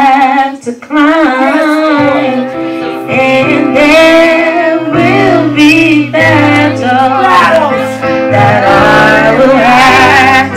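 Two women singing a gospel worship song into microphones over instrumental backing of held chords, with a bass line coming in about two seconds in.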